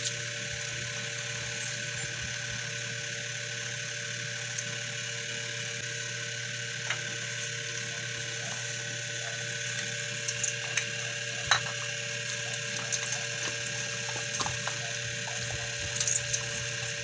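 A steady mechanical hum with a few fixed tones runs throughout. Over it come soft scattered clicks and wet squelches, more frequent in the second half, as a hand works marinade into raw chicken legs in a stainless-steel bowl.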